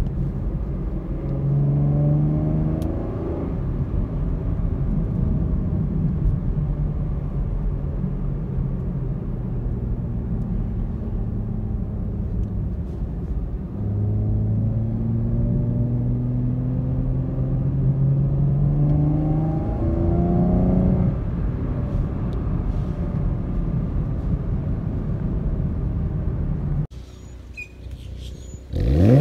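2016 Camaro RS engine and NPP dual-mode performance exhaust heard from inside the cabin while driving. The engine note climbs and falls several times as it accelerates through the gears, with a steady low drone between. Near the end the sound drops to a quieter idle heard from outside behind the car.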